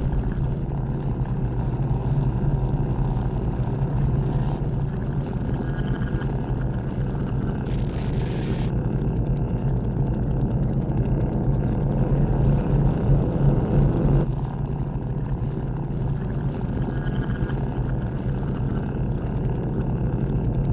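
Experimental electroacoustic drone: a dense, steady low rumble. Short bursts of hiss come through about four and a half and eight seconds in.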